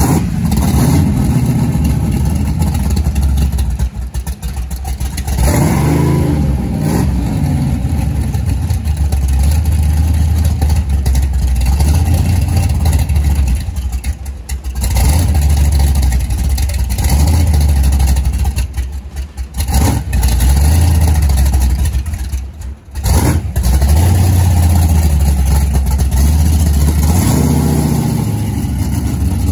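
Monster truck engine running and revving up and down as the truck is driven slowly, with a few brief dips in the sound.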